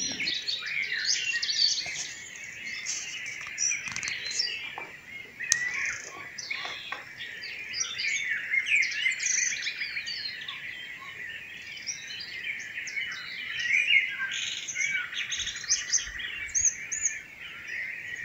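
Pre-dawn chorus of many songbirds singing at once, their chirps and trills overlapping from all sides.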